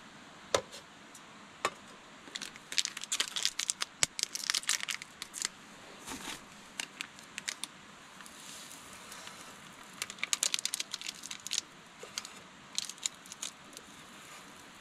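Crinkling and crackling of something being handled, in irregular bursts: densest from about 2 to 5.5 seconds in and again around 10 to 11.5 seconds in, with a few single sharp clicks between, over a faint steady hiss.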